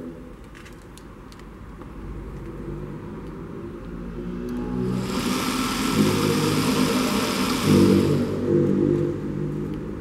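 Washing-machine motor driving a centrifugal water pump through a belt and pulleys, running up with a hum that grows steadily louder. About halfway through a loud hissing rush joins it for some three seconds. The pump is turning without water in its chamber, not yet primed.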